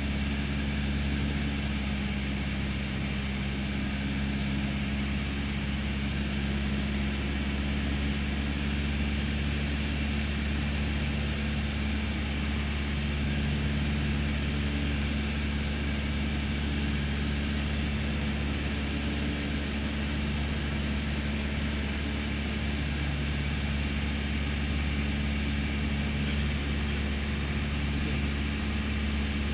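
Single-engine light aircraft's piston engine and propeller droning steadily in flight, heard from inside the cabin.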